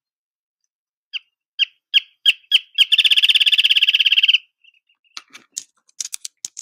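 Wrentit song from a recording: single clear notes that come faster and faster, running into a rapid trill about a second and a half long, the 'bouncing ping-pong ball' rhythm of the species. A few faint clicks follow near the end.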